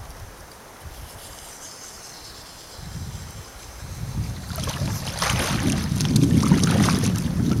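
Wind buffeting the microphone, growing stronger a few seconds in, with a run of sharp crackles over it in the second half.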